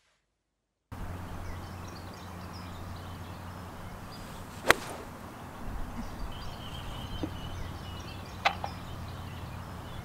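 Golf club striking a ball off the tee with a sharp click, twice, about four seconds apart, starting about a second in, over a steady low outdoor hum.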